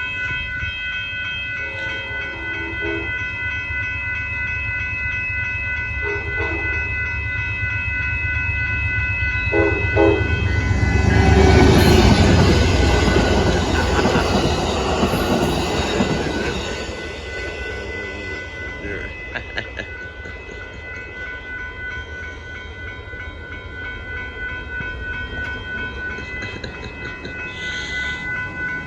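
Amtrak Texas Eagle passenger train approaching and passing: its horn sounds in short blasts about 2, 6 and 10 seconds in, then the locomotive and cars rush by loudly for several seconds before fading to wheels clicking over the rail joints. A steady high ringing runs underneath throughout.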